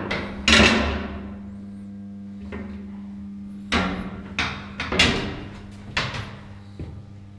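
Steady machinery hum of a ship's engine room, broken by irregular sharp metallic knocks and clanks on steel that ring on briefly, the loudest about half a second in and near five seconds in.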